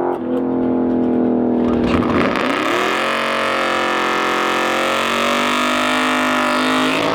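Drag race car engine held at high revs. Its pitch dips and climbs back about two and a half seconds in, then holds steady with a loud hiss over it.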